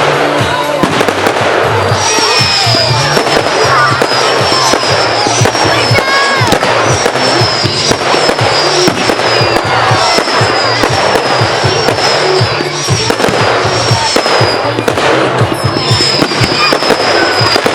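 Firework display: rapid, continuous bangs and crackling over music with a steady, stepping bass line. A high thin whistle joins about two seconds in and runs on.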